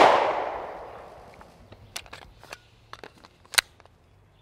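The fading echo of a Walther PDP pistol shot, dying away over about a second and a half. This is followed by several light clicks and one sharper click about three and a half seconds in as the pistol is handled.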